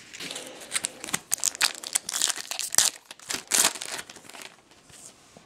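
Foil wrapper of a 2012 Bowman Chrome baseball card pack being torn open and crinkled by hand: a run of irregular crackles that dies away about four seconds in.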